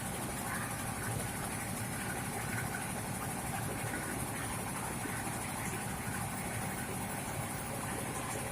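Old rice-milling machine running steadily, a continuous even mechanical drone.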